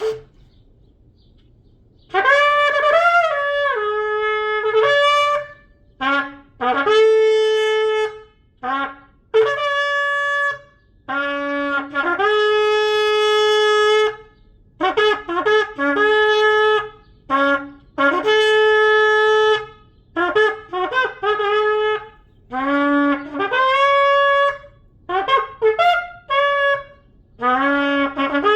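A 51-inch kudu-horn shofar with a newly cut mouthpiece being blown in a long series of short and long blasts, jumping between a low note and a higher note, with a few notes held for about two seconds. The blowing starts about two seconds in.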